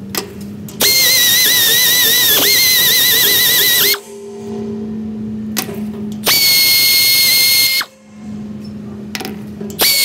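Power drill spinning a cutting bit into a broken pipe fitting, slotting its wall so the fitting can be punched out: three bursts of a high-pitched whine, the first about three seconds long, the pitch dipping briefly as the bit bites.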